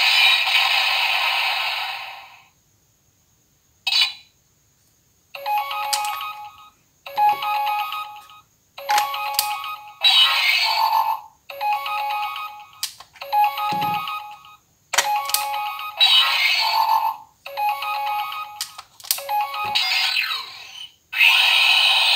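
Auldey DX Rescue Driver toy playing electronic sound effects and short musical jingles through its small, tinny speaker. The sounds come as a string of short bursts, with sharp clicks between several of them.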